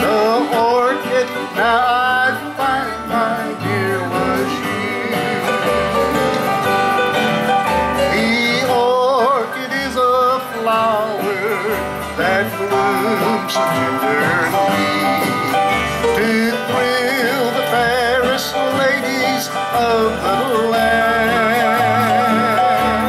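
Small country band playing an instrumental passage on upright bass, digital piano and guitar. Steady bass notes run underneath, with a wavering lead melody on top.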